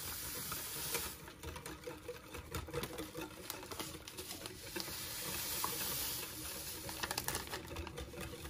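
Wire whisk beating gelatin powder into hot water in a glass measuring cup: a fast, continuous clicking of the metal wires against the glass as the liquid is stirred.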